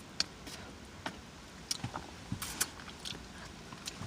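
Wet mouth smacks and clicks of someone eating, about a dozen short sharp sounds at irregular intervals.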